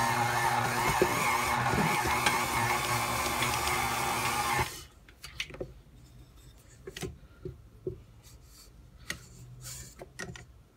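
Stand mixer's motor running steadily with a dough hook kneading bread dough in a metal bowl, cut off suddenly about five seconds in. Afterwards only faint scattered taps and rustles of hands working the dough off the hook in the bowl.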